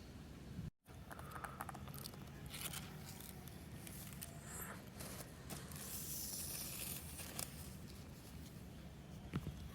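Faint rustling, scraping and tearing of packaging being handled, with a brief cut-out of all sound just under a second in.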